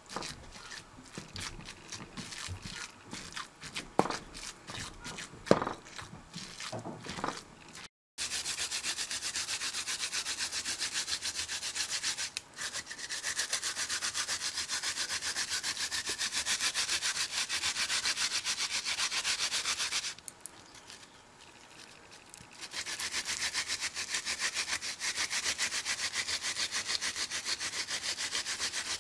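A wooden pestle knocking and scraping as it mashes fish paste in a ridged earthenware mortar. Then tororo yam is grated on a plastic grater: rapid, steady rasping strokes, with a pause of about two seconds a little after the middle.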